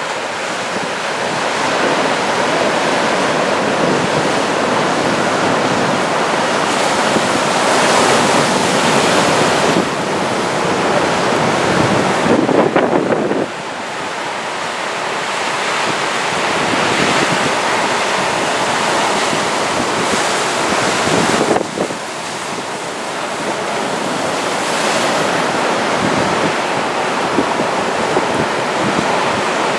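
Heavy swell from an approaching typhoon breaking along the shore, with strong wind buffeting the microphone. The wash of noise swells and eases, and drops suddenly twice: near the middle and about two-thirds through.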